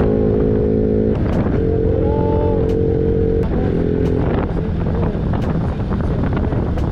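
Bajaj Pulsar NS200 single-cylinder engine running under way at steady revs, its note breaking off briefly about a second in and again about three and a half seconds in. In the second half the engine note fades into wind and road noise.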